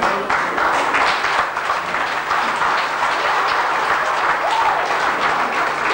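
Audience applauding: many hands clapping together in a dense, even stream of claps.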